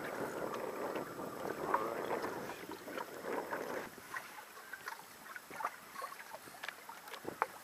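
Small waves lapping and splashing against the hull of a small boat: a busy wash of water for the first few seconds, then quieter with scattered short slaps.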